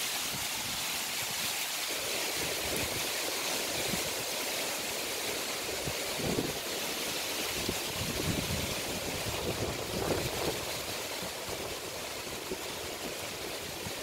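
Strong wind rushing through coconut palm fronds and leafy treetops, a steady rustling hiss, with gusts buffeting the microphone as low rumbles now and then in the second half.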